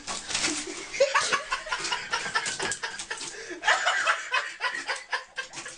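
A person laughing in a run of short bursts.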